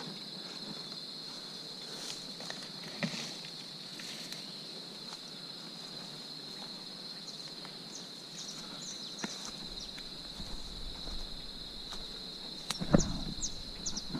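Steady high-pitched insect chorus droning without a break, with scattered footsteps and rustling and a few louder knocks near the end.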